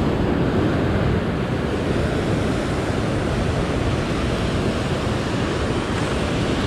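Ocean surf breaking and washing over a rock ledge: a steady rushing of whitewater.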